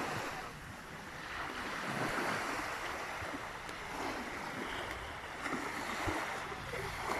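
Sea waves washing onto the shore, the surf swelling and easing, with wind buffeting the microphone.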